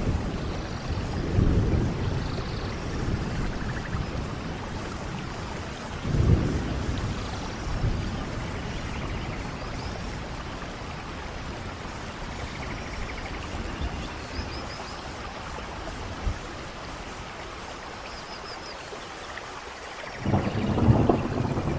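Steady rain falling in a thunderstorm, with rolls of thunder: low rumbles about a second and a half in and again around six and eight seconds, and a louder one starting near the end. A few faint high chirps sound now and then through the rain.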